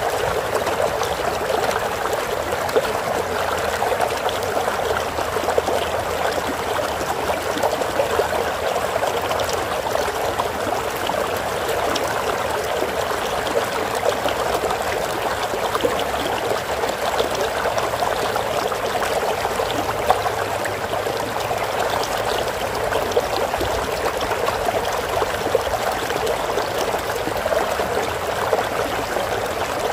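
Stream of water flowing steadily, a continuous babbling trickle over rocks with small splashes and gurgles.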